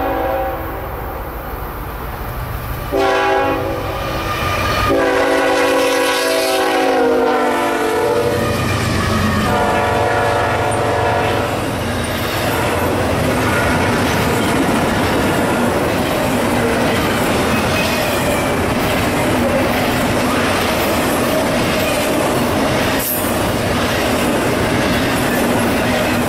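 Horn of BNSF freight locomotives sounding several blasts, the long one falling in pitch as the engines pass. It is followed by the steady rolling noise of a long double-stack container train going by, wheels clacking on the rails.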